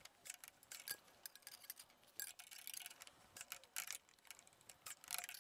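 Hand ratchet wrench clicking faintly in short, irregular runs of ticks as a bolt is turned.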